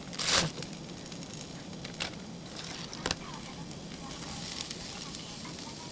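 Vegetables sizzling steadily as they stir-fry, with almost no oil, in a frying pan on a small gas canister camping stove. Chopsticks click against the pan a couple of times, and there is a brief louder burst of noise just after the start.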